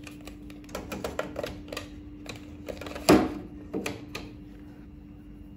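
Handling noise from a digital multimeter and its test leads being picked up and positioned: a string of light clicks and knocks, the loudest about three seconds in, over a steady low hum.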